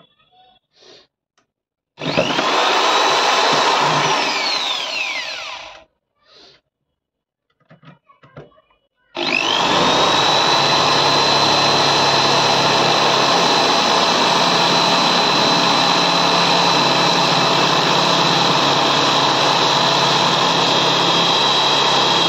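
Cordless drill driving gypsum screws through the subwoofer's metal mounting frame into the wooden enclosure. A short run of about four seconds winds down, a few small clicks follow, and then a long steady run starts about nine seconds in, its high motor whine holding level.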